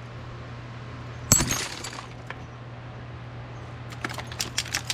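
A laptop hard drive platter shattering as it is bent by hand: one sharp crack with a brief tinkle of breaking glass, then a quick run of small clicks near the end.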